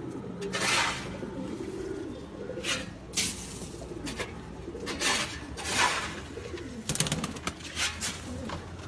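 A flock of domestic pigeons cooing together in a continuous low murmur, with several brief rustling bursts over it.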